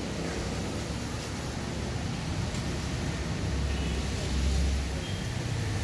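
A motor vehicle's engine running with a low rumble over outdoor background noise, swelling louder about four seconds in.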